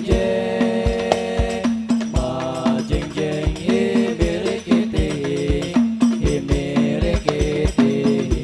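Rebana ensemble: hand-struck frame drums beating a busy, steady rhythm of deep thumps under male voices singing a sholawat melody.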